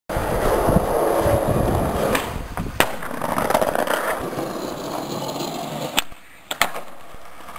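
Skateboard wheels rolling on pavement, with a few sharp clacks of the board striking the ground.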